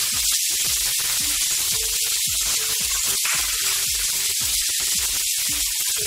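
Diced carrots, corn and French beans sizzling in hot oil in a frying pan, a steady hiss, with faint background music.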